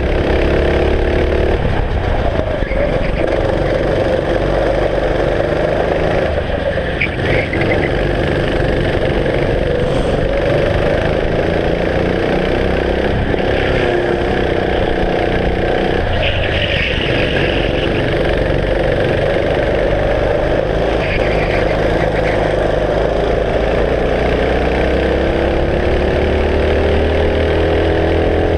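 Kart engine heard onboard at racing speed, its pitch climbing as it accelerates out of corners near the start and again towards the end, and dropping back several times in between as the kart slows into bends.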